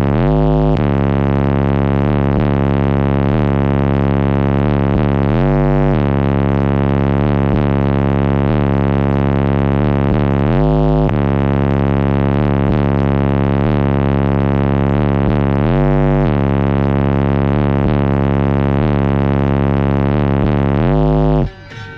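Car audio system with Sundown Audio subwoofers in a fourth-order bandpass enclosure, driven by Crescendo amplifiers, playing a loud, sustained bass drone that dips briefly to a lower note about every five seconds. The bass cuts off near the end.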